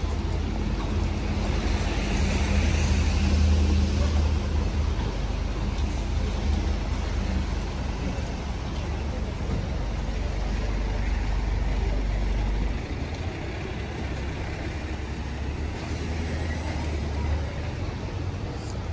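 City street traffic: motor vehicles running and passing, over a low steady engine hum that drops away about two-thirds of the way through.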